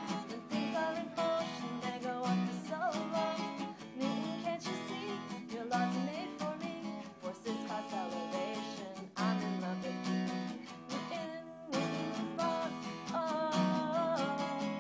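Acoustic guitar strummed in a steady rhythm, with a woman's singing voice coming in at times. The strumming breaks off briefly about eleven and a half seconds in, then picks up again.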